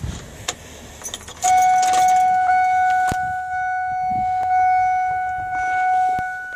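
Keys jangling and clicking at the ignition of a 2000 Ford F-350, then a loud, steady, high warning tone comes on about a second and a half in and holds, with the engine not yet running.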